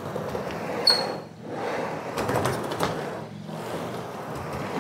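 Skateboard wheels rolling on a ramp, swelling and fading as the board rolls back and forth, with a sharp click about a second in.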